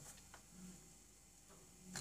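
Faint clicks and light scraping of a wooden raclette spatula against a nonstick muffin pan while prying out soft cookies, with one louder click near the end.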